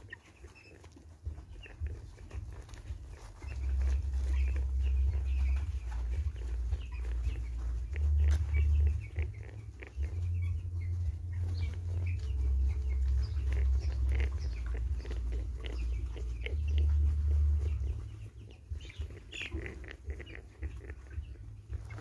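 Young broiler chicks making a strange breathing sound, short faint noises again and again. Farmers often take it for chronic respiratory disease, but the farmer says it does not mean the birds have that disease. A strong low rumble on the microphone, from about four to eighteen seconds in, is louder than the birds.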